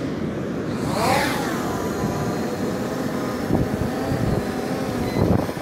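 Quadcopter drone taking off: its motors spin up with a whine that sweeps in pitch about a second in, then settle into a steady hovering buzz.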